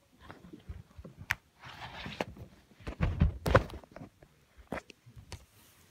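Handling noise close to the microphone: scattered clicks, a short rustle, and a few low thumps about three seconds in, the loudest of them.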